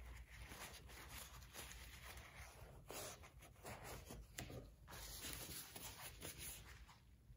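Faint, uneven rubbing and scuffing of a cloth rag wiping leftover glue residue off a car body panel.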